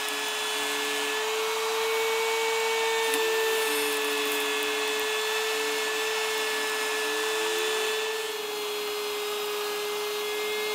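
Table-mounted Mastercraft router running at a steady high whine while its pattern bit cuts a wooden hammer-handle blank fed along a template jig, with the rasp of the cut over the motor.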